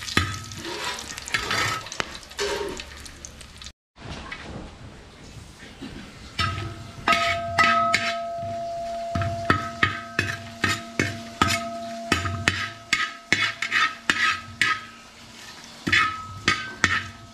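Whole spices (cloves, cinnamon, cardamom, dried red chillies) sizzling in hot ghee in a metal pot while a perforated metal spoon stirs them. From about six seconds in, the spoon repeatedly scrapes and knocks against the pot, and each knock leaves the pot ringing. The sound cuts out completely for a moment about four seconds in.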